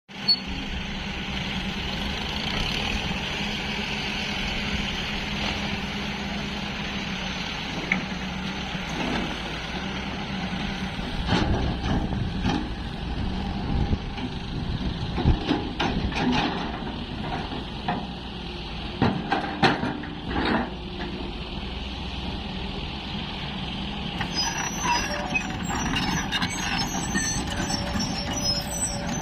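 Hyundai 210 LC-7 long-boom excavator's diesel engine running steadily. Partway through comes a run of sharp metallic clanks and knocks, and near the end some short high chirps or squeaks.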